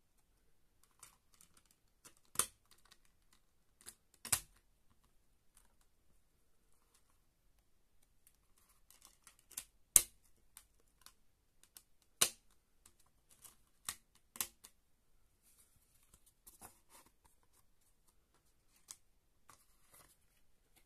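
Sharp plastic clicks and snaps of discs being pried off and pressed onto the hubs of a SteelBook case's plastic disc trays, about seven in all with the loudest about ten seconds in, and light handling rustle of the case and discs between them.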